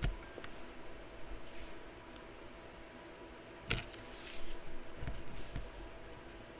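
Quiet bench soldering work: two sharp clicks or taps about three and a half seconds apart and a few brief faint hisses, over a steady faint electrical whine.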